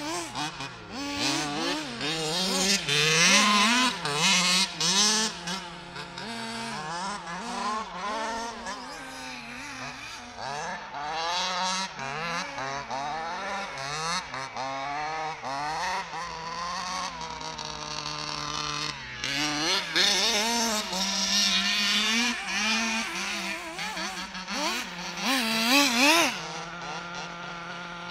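An HPI Baja 5B 1/5-scale RC buggy's reed-case two-stroke petrol engine revving up and down over and over as the buggy is driven hard. The pitch climbs and drops with each burst of throttle, and settles to a steadier tone for a couple of seconds about two-thirds of the way through.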